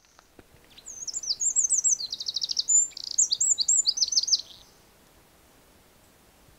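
A songbird singing one fast, high-pitched song of many quick varied notes with a short rapid trill in the middle, lasting about four seconds and stopping abruptly.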